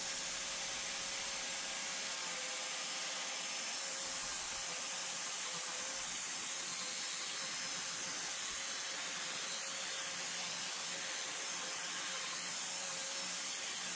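Ryobi angle grinder running with its disc against the wood of a carving: a steady motor whine over a constant hiss.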